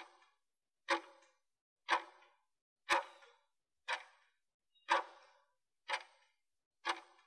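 Clock-tick sound effect, one short tick a second, marking the final seconds of a workout interval countdown before the break.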